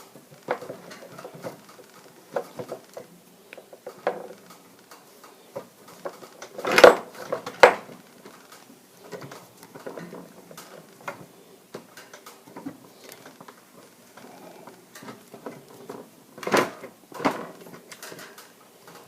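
Metal hand tools clinking and knocking as they are rummaged through and handled while looking for a thread tap, with two pairs of louder clanks, one about a third of the way in and one near the end.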